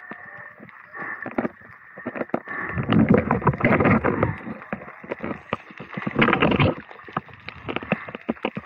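Muffled water sloshing and bubbling against an underwater camera, with many small knocks and two louder rushes about three and six seconds in.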